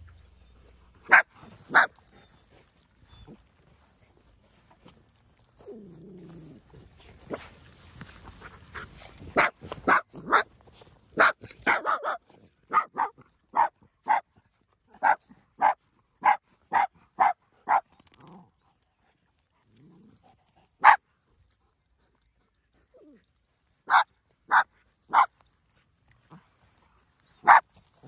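Miniature dachshund barking in play at a much larger dog: short, sharp, high-pitched barks, a couple of single ones at first, then a quick run of about two barks a second, then a few scattered barks again.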